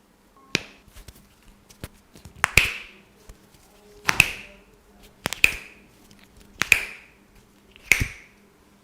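A barber's cracking massage: six sharp snapping cracks on skin, each with a short hissy tail, coming about every second and a half.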